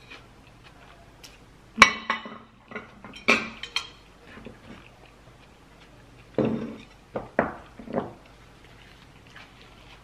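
Eating utensils clinking against dishes while someone eats: a sharp clink about two seconds in, another a second and a half later, then a quick run of four clinks a few seconds after that.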